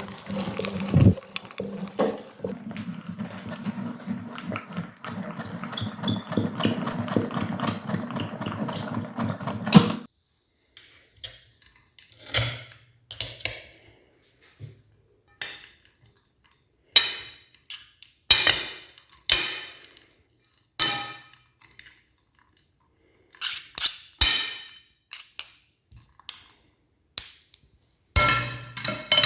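A meat grinder running with a steady hum and rattle, cutting off suddenly about ten seconds in. Then a string of separate sharp clinks and knocks, some ringing briefly, like hard objects being set down or tapped.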